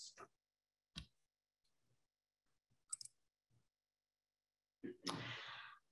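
Near silence: room tone with a sharp faint click about a second in, a fainter click near three seconds, and a short soft hiss near the end.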